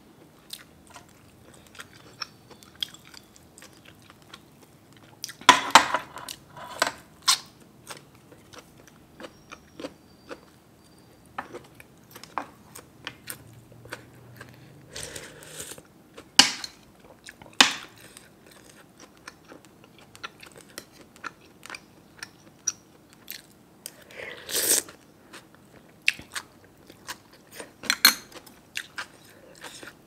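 Close-miked eating: a person chewing and biting through pork noodle soup, with many short soft clicks and a few louder brief noisy bursts scattered through.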